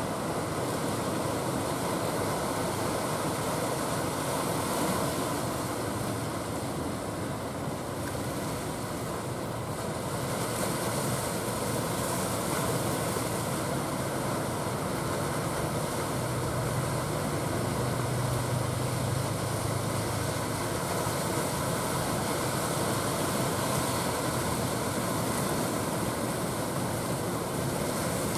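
A motor fishing boat's engine running steadily under a constant wash of sea and wind noise. Its low hum comes up most plainly around the middle.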